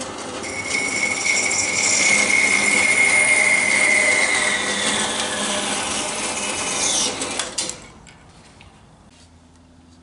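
Small horizontal band saw running and cutting through a white plastic rod: a steady grinding whine with a high tone that sinks slightly in pitch as the blade works through. The sound dies away quickly shortly before the end, leaving a faint hum and a single click.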